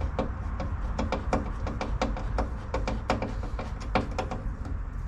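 Irregular sharp clicks and light knocks, about three a second, of hand tools and metal and plastic parts being handled as a bolt is refitted inside a car door.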